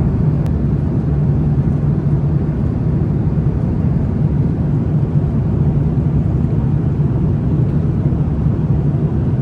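Steady low drone of a jet airliner's cabin in flight, a constant hum with no change over the whole stretch.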